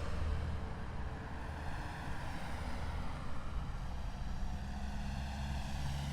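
Heavy military vehicle engines rumbling low: a loud pass fades away at the start, and a low engine drone strengthens again near the end as the column keeps moving.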